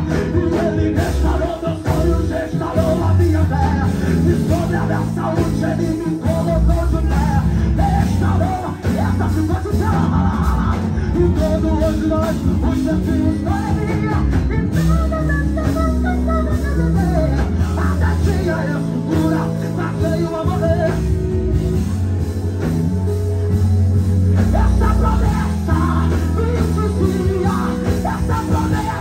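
Live gospel music: a band with electric bass and guitars playing under a man's lead vocal sung into a handheld microphone.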